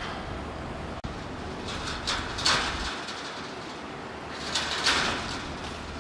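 Grevy's zebra pulling hay from a hanging metal hay rack: two bouts of rustling and rattling, each about a second long and a couple of seconds apart.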